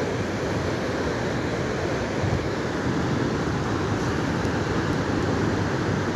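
Bonfire burning with a steady rushing roar and a few faint crackles.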